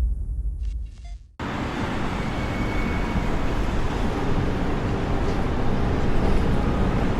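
A deep rumble fades out about a second in. A steady rushing noise then starts abruptly and holds even, like traffic or wind noise, as part of the track's intro sound design.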